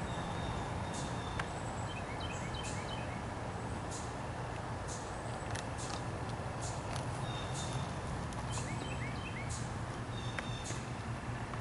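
Outdoor ambience of small birds chirping in short high calls over a steady low hum, with scattered short clicks.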